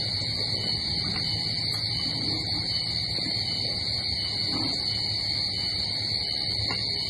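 A steady high-pitched drone with a low hum beneath it, and a few faint soft eating noises from people chewing and spooning food.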